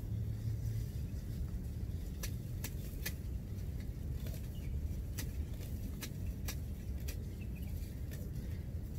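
Tall grass and weed stems being pulled and snapped by hand: scattered sharp snaps and crackles from about two seconds in, over a steady low rumble.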